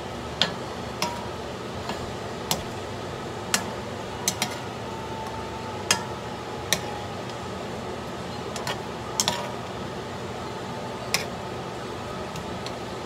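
A spoon stirring tomatoes and onions in a stone-coated wok, knocking and clinking against the pan about a dozen times at irregular intervals, some strikes ringing briefly. Under it runs a steady hiss.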